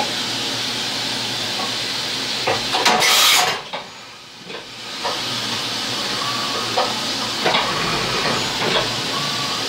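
CNC vertical mill milling the end of a metal fixture block under flood coolant: a steady hiss of coolant spray and cutting. About three seconds in there is a brief louder burst, then the coolant and cutting stop for about a second and a half before the steady hiss returns.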